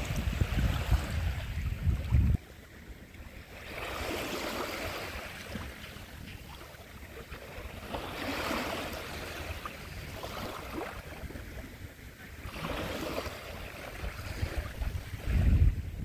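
Small Baltic Sea waves washing up over a beach of small pebbles and shells, each wash swelling and fading, about every four to five seconds. A loud low rumble of wind on the microphone covers the first couple of seconds, cuts off suddenly, and comes back near the end.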